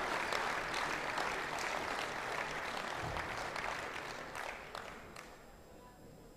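Audience applause, thinning to a few last scattered claps and dying away about five seconds in.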